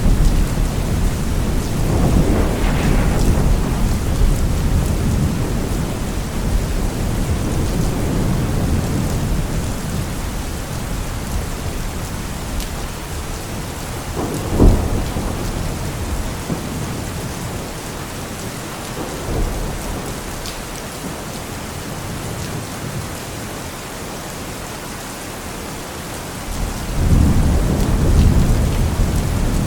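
Steady rain with rolling thunder: low rumbles swell at the start and again near the end, and a single sharp crack comes about halfway through.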